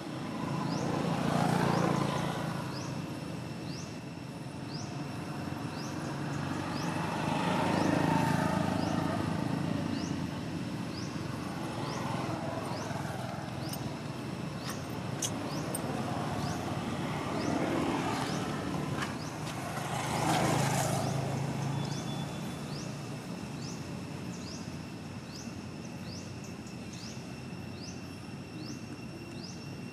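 Passing vehicles: engine noise swells and fades several times, loudest about two seconds in and again about twenty seconds in. Throughout, a short high rising chirp repeats a little more than once a second.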